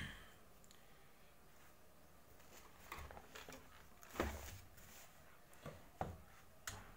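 Quiet room tone broken by a few faint, short knocks and taps, spread unevenly through the second half.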